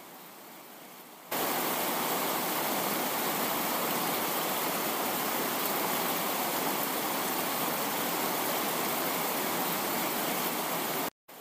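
Steady, even hiss or rushing noise that starts suddenly about a second in and cuts off suddenly near the end.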